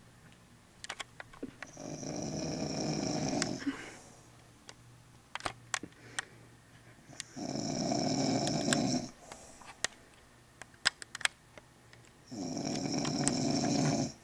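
A woman snoring loudly while asleep: three long snores, each about two seconds, coming roughly every five seconds, with short sharp clicks in the quieter pauses between them.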